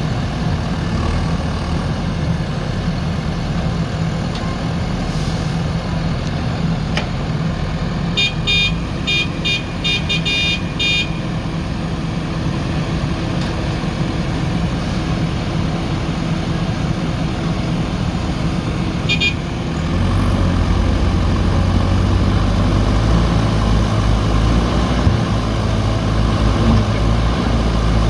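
JCB backhoe loader's diesel engine running steadily. A horn toots in a quick, uneven series about eight seconds in and once more near twenty seconds. Just after that the engine grows louder.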